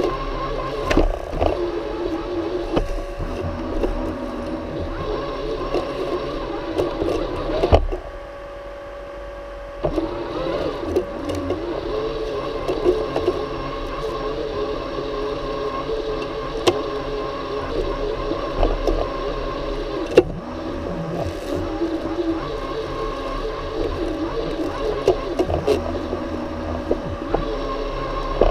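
Worx Landroid M robotic lawnmower running as it mows, a steady motor whine with small ticks and knocks over it. About eight seconds in the sound drops to a quieter hum for roughly two seconds, then the full running sound comes back.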